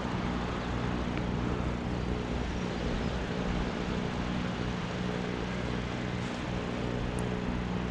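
A distant motor drones steadily at an even low pitch, over a continuous hiss of wind and open air.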